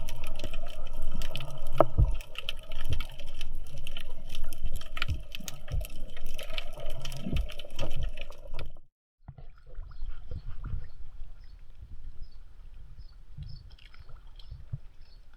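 Water sounds: splashing and trickling with many small clicks, dropping suddenly to a quieter stretch of faint clicks and water noise about two-thirds through.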